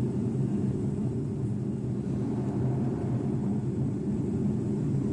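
Low, steady drone of an airliner cabin in flight, engine and airflow noise, recorded on a mobile phone inside the plane.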